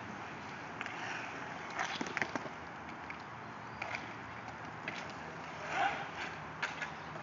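Inline hockey skates rolling and scraping on an asphalt rink under a steady hiss, with a few sharp clacks of sticks: a cluster about two seconds in and scattered ones later.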